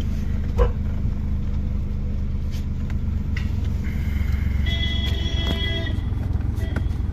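Car cabin interior: steady low rumble of the engine and road, with a single knock about half a second in and a brief steady high tone a little past the middle.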